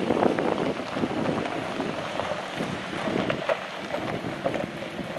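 Wind buffeting the microphone, a rough, uneven rushing noise.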